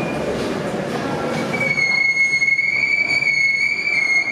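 Steam winch running with a dense mechanical noise. About a second and a half in, a steady high-pitched squeal starts and holds.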